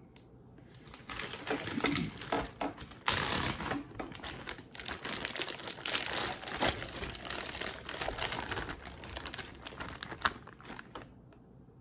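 Clear plastic zip-top freezer bag crinkling and crackling in the hands as ground beef is squeezed and peeled out of it, with a louder burst of crackling about three seconds in.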